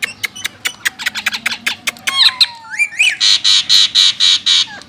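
Parakeets calling: a fast string of sharp chirps for about two seconds, then a few swooping whistles, then a loud run of harsh, rapid squawks for about a second and a half.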